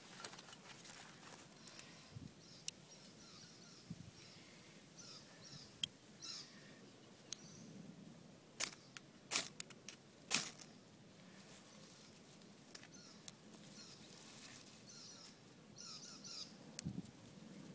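Ferro rod scraped hard with a striker, a few sharp rasping strikes bunched about halfway through, throwing sparks into fluffy native gooseberry flash tinder.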